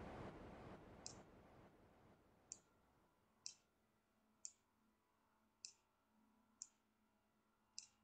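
Faint computer mouse clicks, seven of them at about one a second, as points on a volume envelope are edited. A white-noise hiss fades out over the first second or two.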